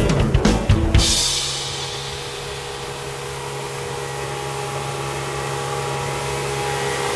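Music with a drum beat cuts off about a second in. A boat's outboard motor then runs with a steady drone under a broad rushing hiss of wind and water.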